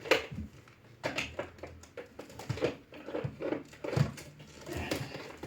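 Plastic vacuum cleaner and its tube being handled and stood upright in the parking position, with scattered light knocks and clicks; the motor is off.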